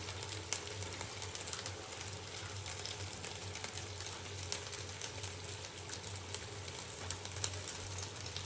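Food frying in hot oil: a steady sizzling hiss full of small crackles, over a steady low hum.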